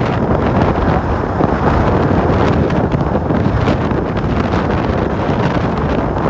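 Loud, steady wind buffeting a handheld phone's microphone during a fast downhill ski run, with the faint scrape of skis over the snow beneath it.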